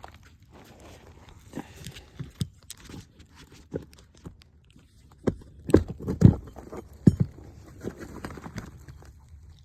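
Irregular knocks, clicks and scraping as nails are worked out of asphalt roof shingles and the shingles are pried loose, loudest in a cluster of heavier knocks about five to seven seconds in.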